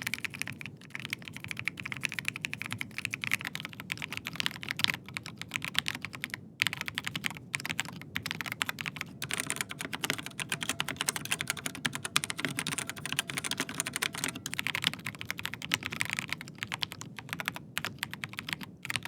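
Fast typing on mechanical keyboards: first a Dark Project Bushido with G3ms Moonstone switches, then, about nine seconds in, a Rapture Kilo V2 with Outemu Red linear switches, whose key clicks sound brighter. The keystrokes come in quick uneven runs with a few brief pauses.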